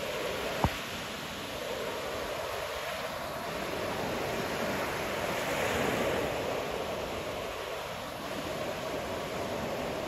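Ocean surf washing onto a beach: a steady rush of breaking waves that slowly swells and ebbs, loudest about halfway through. A brief low thump sounds just under a second in.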